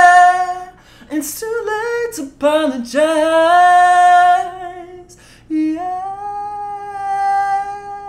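A man singing unaccompanied in a high voice, without words: a held note dies away at the start, then quick bending runs of short sung phrases, then one long held note that slides up and holds near the end.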